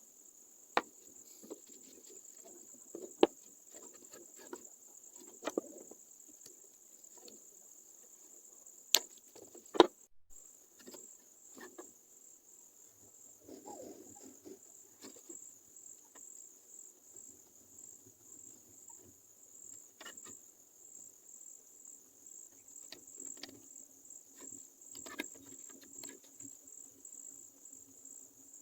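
Steady high-pitched cricket trill, pulsing evenly in the second half, with scattered sharp clicks and knocks of small objects being handled; the loudest pair comes just before ten seconds in.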